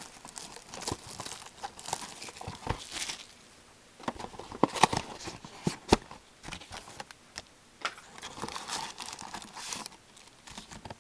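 Cardboard hobby box of trading cards torn open and its wrapped packs handled: tearing and crinkling with scattered sharp clicks and taps, easing off briefly a few seconds in.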